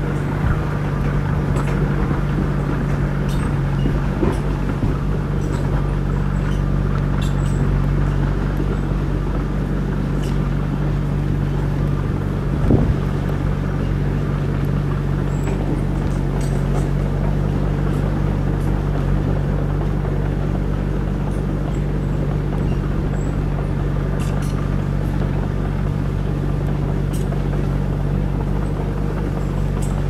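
Crawler bulldozer's diesel engine running steadily as the blade pushes through brush, with one short knock a little under halfway through.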